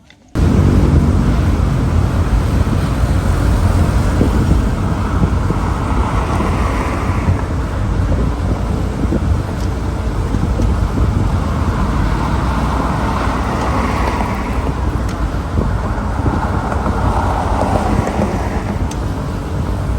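Taxi driving along a road: steady engine and road noise with wind buffeting the microphone, swelling now and then.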